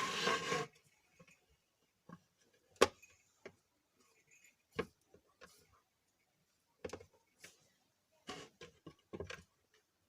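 Scattered sharp clicks and knocks of plastic mixer-grinder parts being handled and pressed together while rubber mounts are fitted, with a louder rustling clatter at the start.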